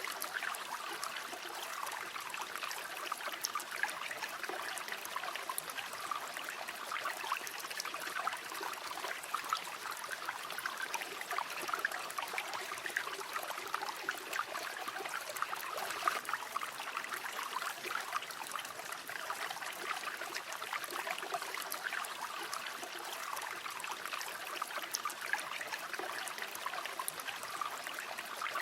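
Small river or stream flowing steadily over rocks, a continuous babbling rush with many small splashes.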